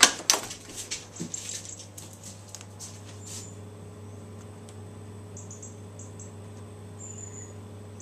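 A door clicking and knocking as it is opened, with scuffling and pattering as a dog goes out, over the first three seconds or so. After that only the steady low hum of the running combi boiler.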